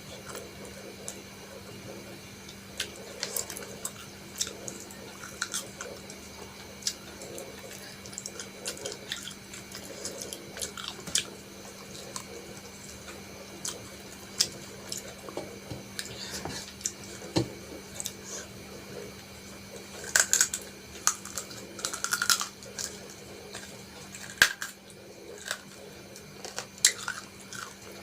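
Close-miked chewing and wet mouth clicks from someone eating a meal of rice and mutton curry, with irregular smacks that come thickest about two-thirds of the way in.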